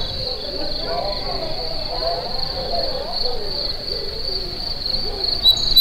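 Crickets chirping in a steady, high-pitched, pulsing trill.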